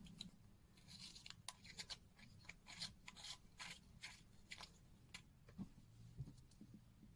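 Faint rustling and light, sharp clicks of small items being handled on a watch bench, a quick run of them in the middle, over a low steady hum.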